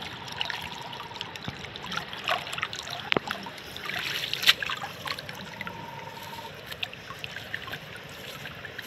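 Water trickling and splashing off a wet nylon cast net as it is gathered and lifted out of the river shallows, with irregular small splashes and drips, the biggest splash about halfway through.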